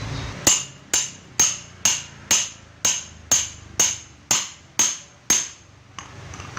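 Hammer striking a metal fan part: eleven evenly spaced blows, about two a second, each with a brief metallic ring.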